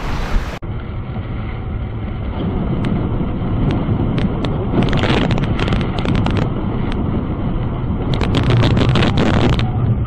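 Storm-force wind buffeting a car's dashcam microphone as the car drives on a highway, giving a heavy low rumble. Over it come scattered sharp taps and stretches of louder hissing, the loudest in the second half.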